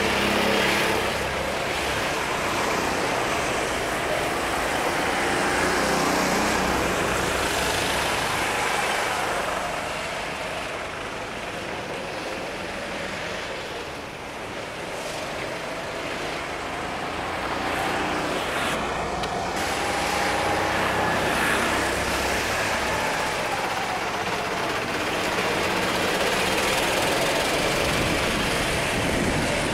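Several Sodi RT8 rental karts' four-stroke engines running as they lap the track, their pitch rising and falling as they accelerate and pass, over a steady hiss. The sound fades somewhat for a few seconds near the middle as the karts move farther off, then swells again.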